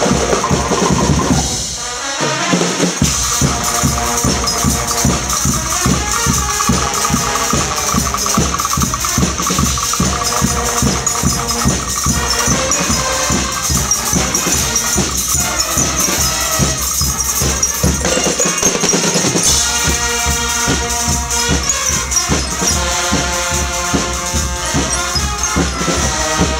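Guggenmusik carnival brass band playing live: trumpets and other brass over a drum kit with cymbals, keeping a steady beat. The deep beat stops briefly twice, about two seconds in and again past eighteen seconds.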